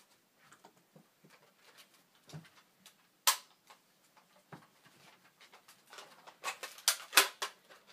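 Short sharp clicks and knocks of a plastic Nerf blaster being handled: one loud click about three seconds in and a quick run of clicks near the end.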